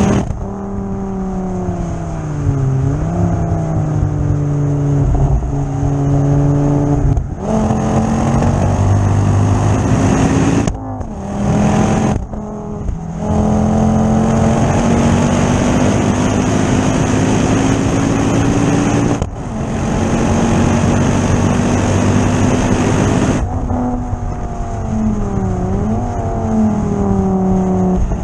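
Ford Focus ST225's turbocharged five-cylinder engine pulling under load on track, its note climbing slowly with revs and falling away in several short breaks, with a dip and recovery early on and again near the end.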